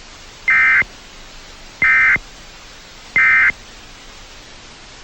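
Emergency Alert System end-of-message data burst: three short, loud, high-pitched digital buzzes about a second apart over a steady hiss, signalling that the alert message is over.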